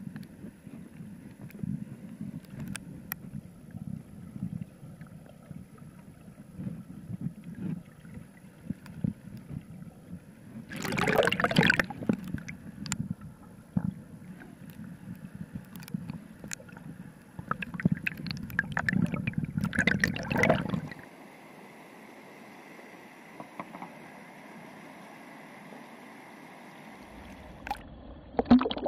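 River water gurgling and rushing, heard muffled through an underwater camera's housing, with two louder bouts of splashing, about 11 and 19 seconds in. After about 21 seconds the low churning stops, leaving a quieter steady hiss, and a short splash comes near the end.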